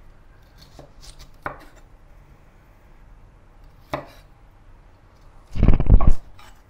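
Chef's knife cutting broccoli florets on a wooden cutting board. A couple of single taps of the blade on the board come first, then a quick run of several loud chops near the end.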